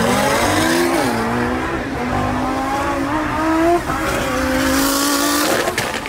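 Modified Lamborghini Huracan V10 engines at full throttle, heard from inside the cabin, pulling hard through the gears. Engine pitch climbs steadily, drops with upshifts about a second in and again around four seconds, climbs once more, then falls away near the end as the throttle lifts, with a few sharp crackles.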